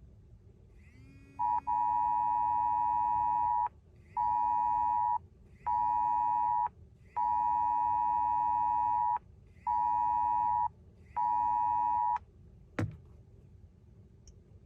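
Wireless Emergency Alert attention tone from a phone: a loud two-pitched tone with a low hum under it, sounding in a long-short-short pattern played twice. A sharp click follows about a second after it stops.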